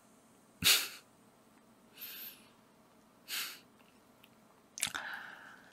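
A man's short breathy exhales: four soft puffs of air about a second apart, the first the loudest.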